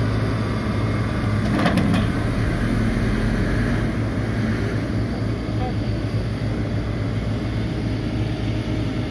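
Heavy diesel engines of large farm tractors running steadily under load, pulling a mud-bogged loaded truck by cable. A short sharp noise stands out about two seconds in.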